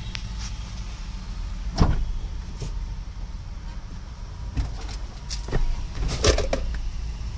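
Truck cab door unlatching with a sharp knock about two seconds in, then several knocks and clicks as someone climbs into the cab, over a steady low rumble.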